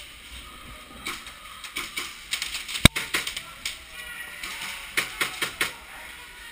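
Airsoft gunfire: scattered sharp snaps. One loud crack comes about three seconds in, then a quick run of four or five snaps near five seconds in.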